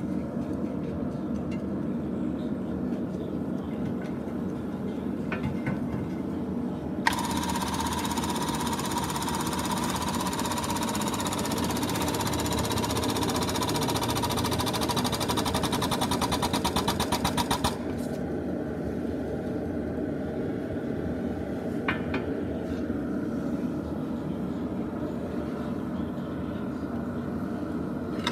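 The air-driven hydraulic pump of a portable rivet-setting press runs with a hiss and a steady whine while it squeezes a 3/8-inch hot rivet head under up to 12 tons. For its last few seconds it turns to rapid, even pulsing, then cuts off suddenly. A steady low rumble lies underneath, with an odd click.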